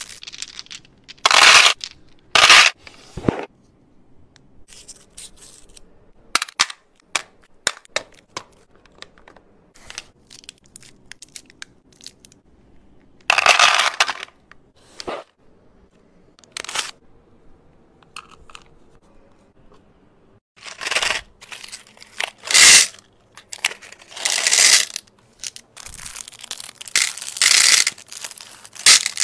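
Candy wrappers being torn open and crinkled by hand in a series of short, sharp bursts, several seconds apart, with light clicks of hard candies dropping into a plastic divided tray.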